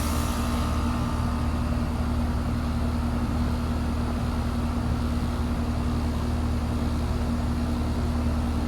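Carrier Sentry central air conditioner's outdoor unit running just after starting up: a steady hum from its Copeland scroll compressor and condenser fan. A high hiss dies away in the first second.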